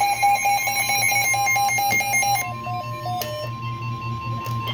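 Weather-radio alert alarm: a fast, even run of shrill electronic beeps for about two and a half seconds, stepping down through a few lower notes, then one steady high tone, the NOAA Weather Radio warning alarm tone that announces a new warning. A low hum runs underneath.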